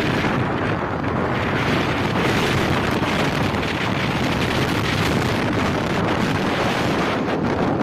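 Wind rushing steadily across the microphone, loud and unbroken, with some light crackling near the end.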